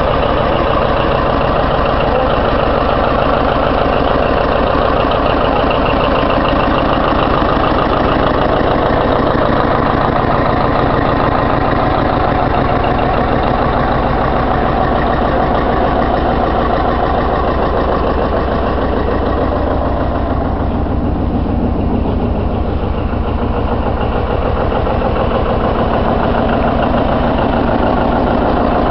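John Deere 820's two-cylinder diesel engine idling steadily.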